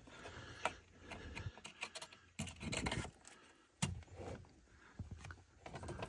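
Faint plastic clicks and scraping as a wiring-harness connector is worked onto a Jeep JK's replacement ignition switch and its locking tab pressed home. There are a handful of separate sharp clicks, the clearest about four seconds in.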